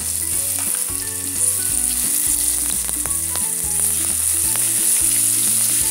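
Chopped ginger sizzling in hot soybean oil and caramelizing sugar in an aluminium pot, a steady frying hiss. A few light clicks come from the wooden spoon against the pot.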